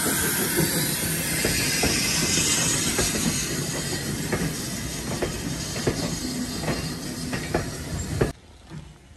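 Small GWR tank steam locomotive No. 1340 and its coach rolling slowly past, with a loud steady hiss of steam and the wheels clicking at irregular intervals over the rail joints. The sound cuts off abruptly near the end.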